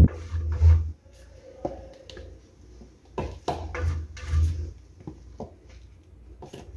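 Silicone spatula spreading butter over a metal springform cake pan: soft scraping strokes with scattered light taps of the spatula on the pan.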